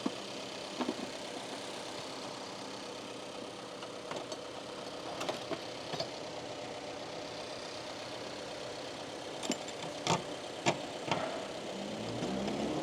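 Subaru Impreza's flat-four engine idling steadily under the open hood, with scattered sharp clicks and metallic knocks from a 10 mm deep socket wrench working the battery hold-down bracket. Near the end a hum rises in pitch and grows louder.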